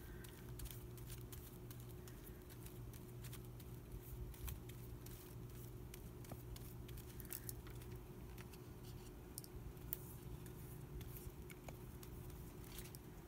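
Faint brushing and scraping of a paintbrush spreading Mod Podge across a paper journal page, then a paper napkin cut-out laid on and pressed down. Scattered light clicks and ticks run through it over a steady low hum.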